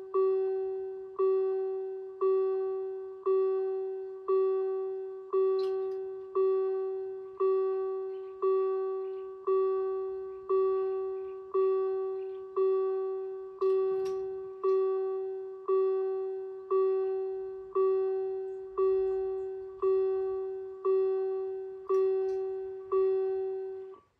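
Danish level crossing warning bell striking about once a second, each stroke ringing and fading, while the crossing's red lights flash and the barriers come down: the warning for an approaching train. It stops near the end, once the barriers are down.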